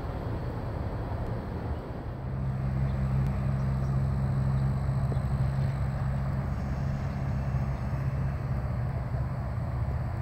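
Steady low engine hum of vehicle traffic over a haze of outdoor background noise; the hum sets in about two seconds in and fades near the end.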